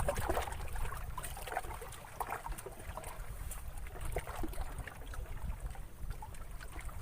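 Water lapping and trickling, with a low irregular rumble underneath and scattered light ticks.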